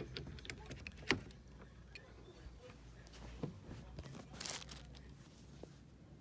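Faint handling noise from a plastic power adapter being handled by hand: a few light clicks and knocks, the loudest about a second in, and a short rustle about four and a half seconds in.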